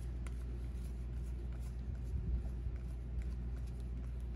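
Topps 2020 Series 2 baseball cards being flipped and slid through a pack by hand: faint, scattered papery clicks over a steady low hum.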